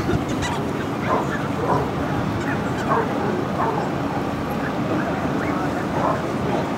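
Dogs barking and yipping in short, repeated calls at an irregular pace, over a steady background of voices.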